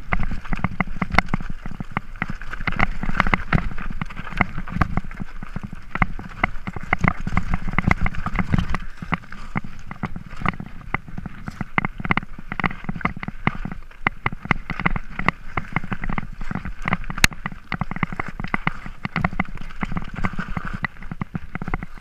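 Mountain bike riding down a rocky trail: a continuous, irregular clatter and rattle of tyres, frame and components over loose stones, over a low rumble of vibration, heard from a camera mounted on the rider.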